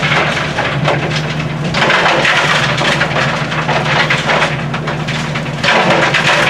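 Excavator engine and swing hydraulics running, heard from inside the cab as the loaded bucket swings over the plant's feed hopper: a steady engine hum under a continuous gritty crunching and rattling from the running trommel scrubbers tumbling ore. The crunching swells louder about two seconds in and again near the end.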